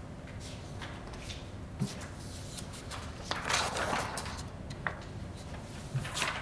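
Sheets of paper rustling as documents are handed out across a table, loudest a little past the middle and again near the end, with a few light knocks over a low steady room hum.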